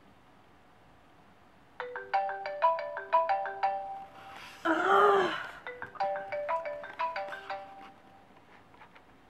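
A phone plays a marimba-like ringtone melody of quick struck notes, twice. Between the two passes there is one drawn-out vocal sound from a person.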